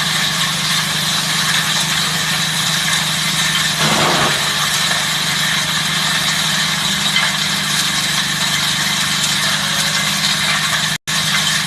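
VH350 disc-hammer wood chipper, driven by a 5.5 kW 380 V electric motor, running steadily with a constant hum and a high whine. About four seconds in there is a brief louder rush of noise, and the sound cuts out for an instant near the end.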